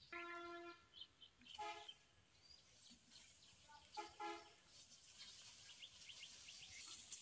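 A horn sounding several short toots. The first, about half a second long, comes at the start, followed by a shorter one about a second and a half in and a quick double toot about four seconds in. Faint outdoor background lies beneath.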